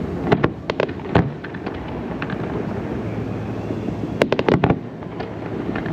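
Aerial fireworks bursting in quick clusters of sharp bangs and crackles, with a dense flurry about four seconds in.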